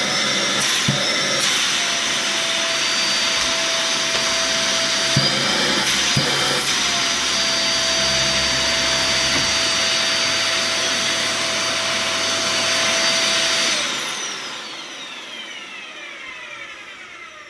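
Dyson DC50 Ball vacuum cleaner's motor running with the cyclone bin off, a steady whine with the rush of air drawn hard through the open inlet: the motor is pulling strong suction. The whine wavers briefly a few seconds in, and about fourteen seconds in the motor is switched off and the whine falls away as it spins down.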